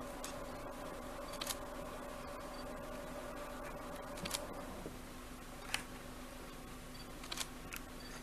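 Camera shutters clicking, singly and in quick pairs, about five times over several seconds, over a steady droning hum; one tone of the hum stops about halfway through.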